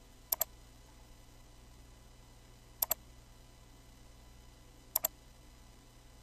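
Computer mouse clicking three times, each a quick pair of clicks: about a third of a second in, near three seconds, and about five seconds in, over faint steady hiss.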